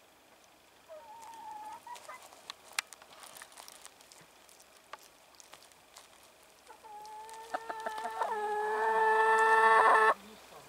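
Chickens calling: a short cluck early on, a few scattered clicks, then a drawn-out call that swells into a loud held note for about three seconds and cuts off suddenly.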